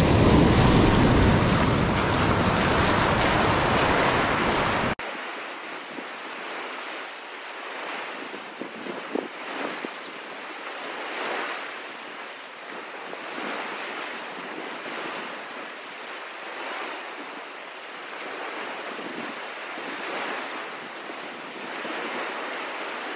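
Surf washing in at the waterline, with wind buffeting the microphone, loud for the first five seconds. After a sudden cut about five seconds in, quieter ocean surf goes on steadily, swelling and fading as waves break.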